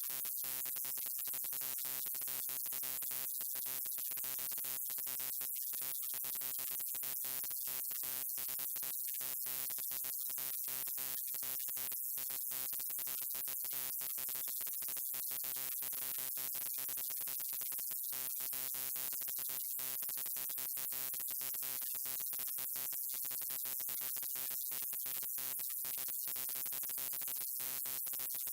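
Neon sign's electrical buzz: a steady, many-toned hum with hiss above it, cutting out very briefly again and again at irregular moments, like a flickering tube.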